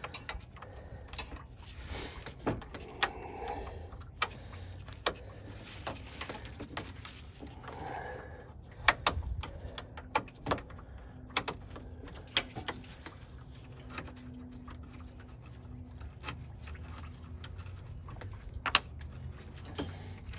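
Small wrench loosening 10 mm radiator mounting bolts: scattered, irregular metallic clicks and clinks with handling noise in between.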